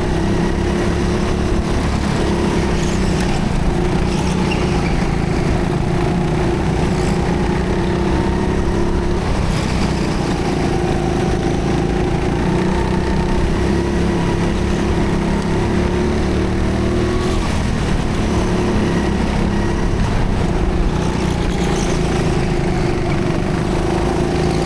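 Onboard sound of a rental go-kart driven at racing pace. Its engine drones at a fairly steady pitch, dipping briefly every several seconds, over a heavy low rumble of wind and vibration on the microphone.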